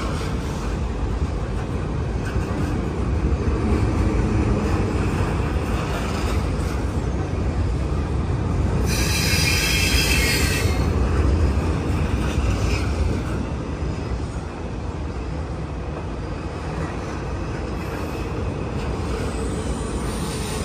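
Double-stack intermodal well cars rolling past: a steady rumble of steel wheels on rail. About nine seconds in, a loud high-pitched wheel squeal lasts about two seconds, with fainter squeals shortly before and after it. The rumble eases a little after about fourteen seconds.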